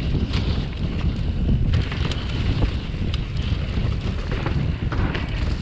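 Wind buffeting the microphone of a chest-mounted action camera during a mountain bike descent on dirt singletrack. Under it, a steady rumble of tyres on the trail, with scattered clicks and rattles from the bike.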